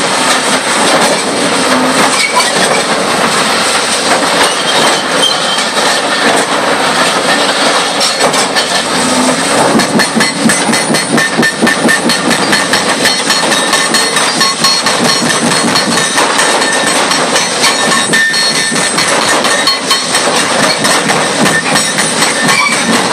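Hydraulic concrete crushers on demolition excavators breaking up a concrete road deck: diesel machinery running under a dense, continuous clatter and crunch of concrete and steel, with rapid impacts thickest in the second half.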